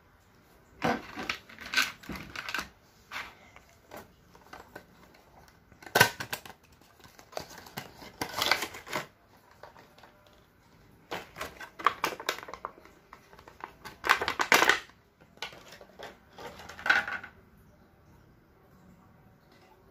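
Hands handling and unpacking a car charger's box with a clear plastic window: crinkling plastic, taps and small clicks in several short bursts.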